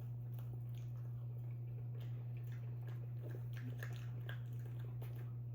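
Faint, soft chewing of a marshmallow Peeps candy, with scattered small mouth clicks and smacks. Under it runs a steady low hum, the loudest thing heard.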